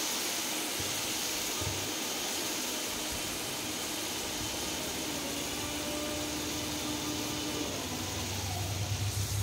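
Small river fish frying in hot oil in a wok: a steady sizzle, with a low hum coming in near the end.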